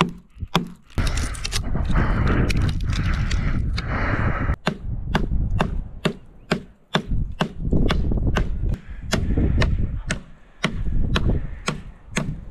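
A steel blade hacking at a dry, dead tree branch: a long run of sharp chopping strikes, about two to three a second for most of the stretch. Wind rumbles on the microphone at times, loudest between the runs of blows.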